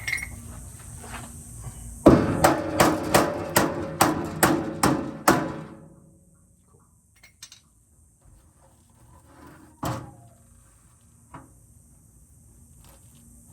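Hammer blows on a stuck steel bolt: about a dozen quick, ringing metal strikes, roughly three a second for three or four seconds, then a single knock later on.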